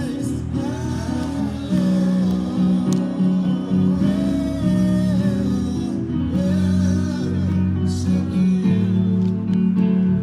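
Church worship music: singing over instrumental accompaniment with sustained low notes.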